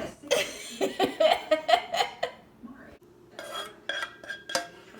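Dishes and food containers clinking and clattering as they are handled. A short laugh or voice sound comes in the first two seconds.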